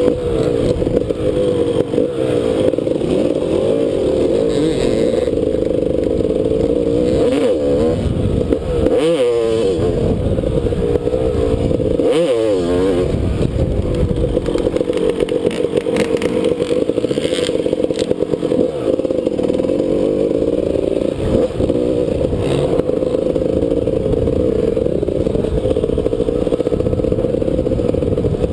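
Dirt bike engine running hard under the rider's throttle, its pitch rising and falling as he rides. About a third of the way in, and again a few seconds later, the throttle is chopped and the engine note dips sharply before climbing back up.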